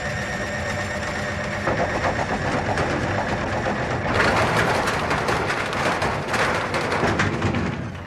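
Front-loading washing machine with its concrete counterweight blocks removed, running its drum: a steady motor whine under the rattle and clatter of the shaking cabinet, which grows louder about four seconds in. With no concrete to damp the vibration, the machine shakes itself across the floor.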